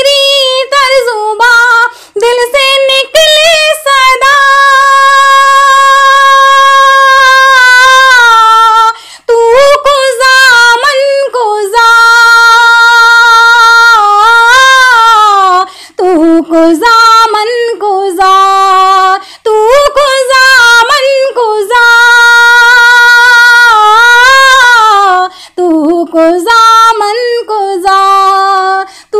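A woman singing a naat unaccompanied, solo voice only, in long held notes that waver and curl at the phrase ends, with short breaks for breath between phrases.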